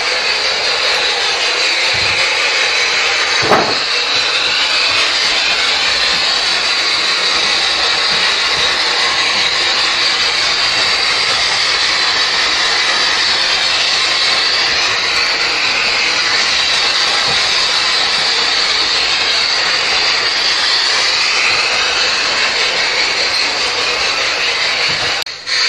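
G scale model steam train running along its track, a steady whirring hiss from the motor and wheels, with a single sharp click about three and a half seconds in.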